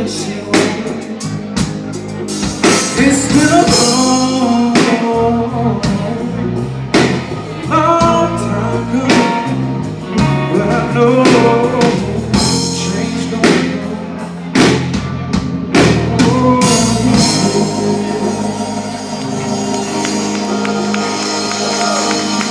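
Live soul band with lead vocals, drum kit, electric bass, electric guitar and keyboards playing, the singers' voices sliding through melodic runs over the beat. About seventeen seconds in the drums drop out and the band holds a long sustained chord, the close of the song.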